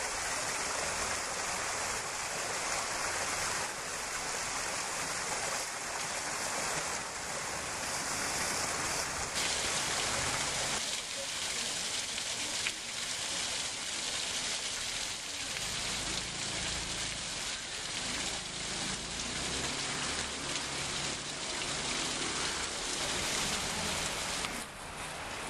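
Steady rush of water splashing down a rock-pile fountain, its tone shifting twice about ten seconds in.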